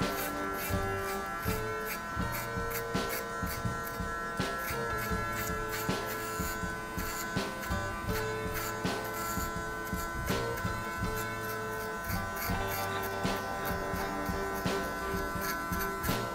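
Electric hair clipper running with a steady hum as it cuts short hair at the back of the neck, over background music with a beat.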